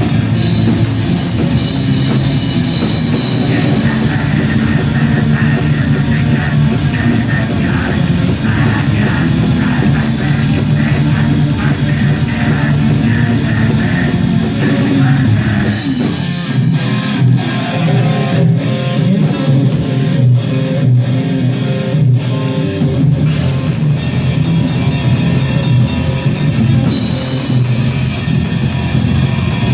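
A black metal band playing live, with distorted electric guitars and a drum kit. About halfway through, the low end and drums fall away for several seconds, then the full band comes back in.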